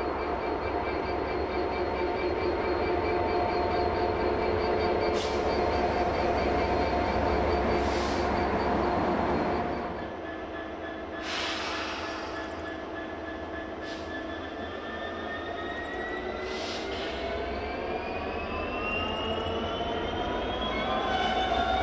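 A rake of covered car-carrier wagons rolls past with a steady rumble and a few held squealing tones from the wheels. The sound then changes suddenly to a Class 66 diesel locomotive working, with a whine that rises steadily in pitch through the last several seconds.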